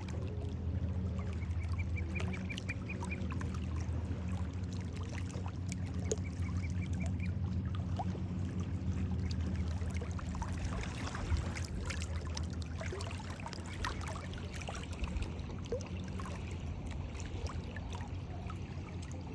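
Water splashing and lapping over a steady low hum, with birds calling in short rapid series of high notes a few times in the first half.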